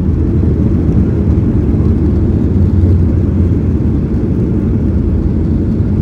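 Inside the cabin of a Boeing 737-800 during landing: a loud, steady low rumble from its CFM56 engines and the airflow around the airframe.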